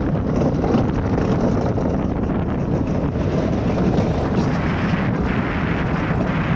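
Wind rushing over the microphone with the steady rumble of a luge cart's wheels rolling down the track. The hiss of the wind rises for a couple of seconds past the middle.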